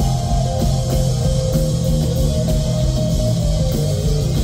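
Live instrumental electronic rock band playing loud, heard from the audience: steady bass and held synth or guitar notes over a drum kit with an even cymbal pulse.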